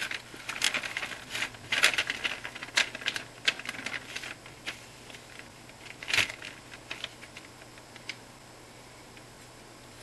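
Fillet knife and newspaper handled while filleting a small pike: quick clicks, taps and crinkles of knife on fish and paper. They come thickly at first, with a sharper knock about six seconds in, then thin out to a few faint ticks.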